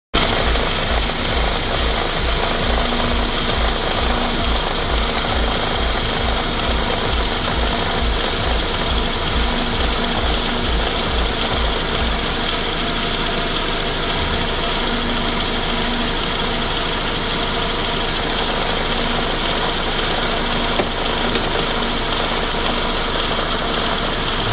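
Mercedes-Benz M111 four-cylinder petrol engine idling with a knock that sounds like a worn timing chain but comes from the accessory belt tensioner's damper.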